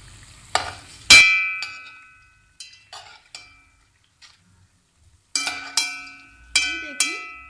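Metal slotted spoon clinking against a pan while turning bread pieces frying in oil. There are about nine sharp, briefly ringing strikes in two bursts, the loudest about a second in, over a faint frying hiss at the start.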